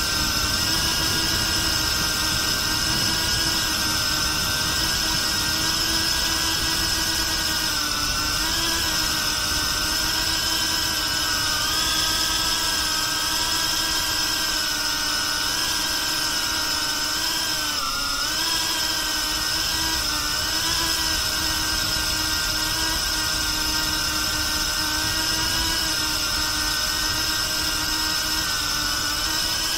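Brushless motors and propellers of a BetaFPV Pavo360 cinewhoop drone whining steadily in flight, close to the microphone on the drone itself, with a steady high whine above. The pitch dips and rises briefly a few times as the throttle changes.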